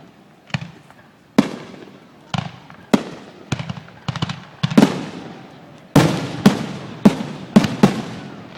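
Aerial fireworks shells bursting, about a dozen sharp booms, each trailing off in a rumble. The bangs come faster and closer together from about six seconds in.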